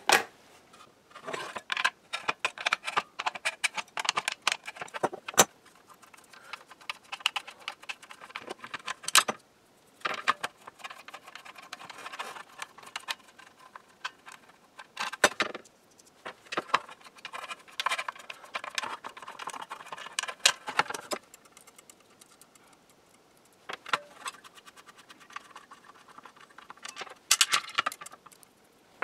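Small metal hardware clicking, clinking and scraping in bursts separated by short pauses: binding posts and nuts being unscrewed from a crystal radio panel by hand and set down on a wooden bench.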